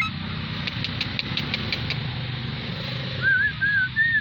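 Jalak putih (black-winged myna) giving a run of short wavering whistled notes from about three seconds in. Under it is a steady low hum, with a quick series of clicks in the first two seconds.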